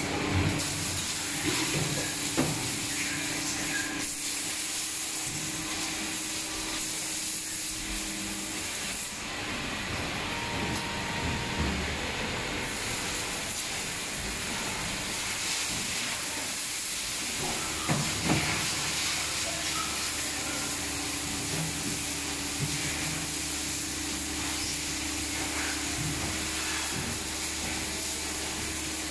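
Steady hiss and hum of factory machinery around a silicone compression-moulding press, with a few light knocks, the clearest about two seconds in and again around eighteen seconds.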